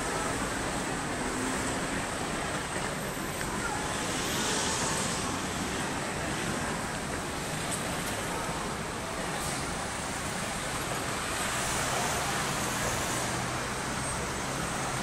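Road traffic on a busy street: a steady hum of car engines and tyres, growing louder twice as vehicles pass.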